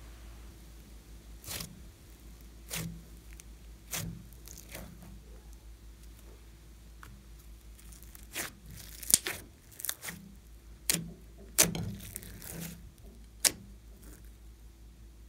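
Fluffy slime being squeezed and kneaded by hand, giving off irregular sharp pops and crackles, closer together in the second half.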